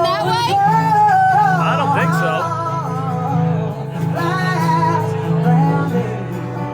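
Live band playing with a singer, a steady bass line underneath the vocal melody.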